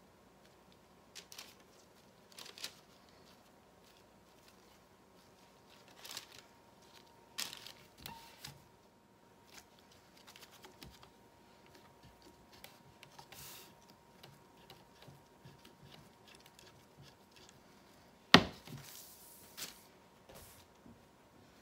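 Scattered light clicks and taps of hands working a wire soap cutter: soap pieces handled on its plastic bed and the wire's tension being loosened. One sharp knock a few seconds before the end is the loudest sound, followed by a brief rustle of a hand brushing across paper.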